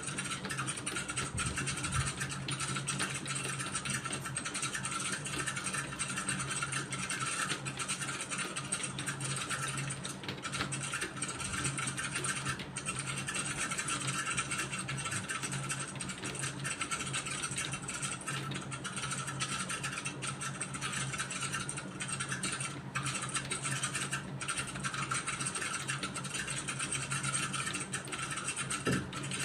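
Continuous typing on a computer keyboard: a fast, steady run of key clicks with a few brief pauses, over a steady low hum.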